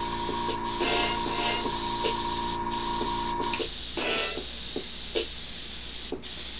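Airbrush spraying, a steady hiss of air and paint that stops briefly a few times as the trigger is let off, with background music.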